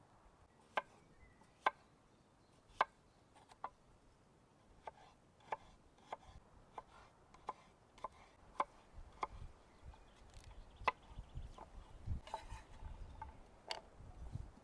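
Knife chopping on a wooden cutting board: about fourteen single, unhurried strokes, roughly one a second.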